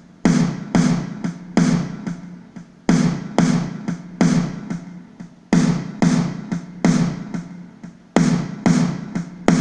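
Sampled snare drum hits repeating in a steady pattern, each a sharp crack with a short decaying ring, played through an 1176-style compressor plugin to make the snare pop forward.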